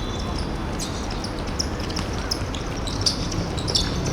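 Hall ambience of an indoor korfball game, with scattered short, high squeaks of players' shoes on the court floor.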